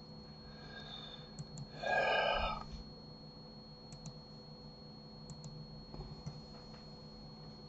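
Faint computer mouse and keyboard clicks, a few scattered through, over a steady low hum. About two seconds in, a short wordless vocal sound, like a brief hum or throat noise.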